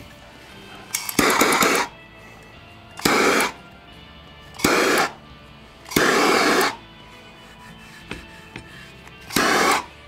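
Handheld propane torch fired in five short hissing bursts, each under a second, heating the vinyl skin so it conforms to the rifle's receiver.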